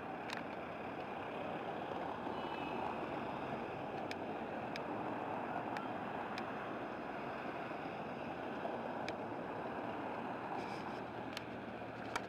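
Steady outdoor background noise: an even rushing hiss, with a few faint ticks scattered through it.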